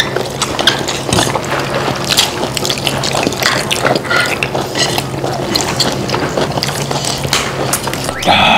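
Close-up wet chewing and lip-smacking of people eating gopchang (pork intestines), in quick irregular smacks.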